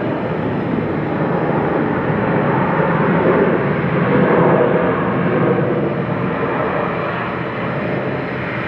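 Jet engines of a Southwest Boeing 737 on its landing: a loud, even roar that swells to a peak about four seconds in and then eases off.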